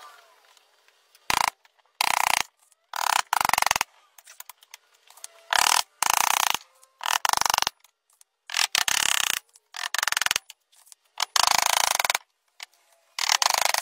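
Claw hammer driving nails into small pine blocks on a wooden board: about ten quick runs of rapid strikes, each under a second long, with short pauses between them.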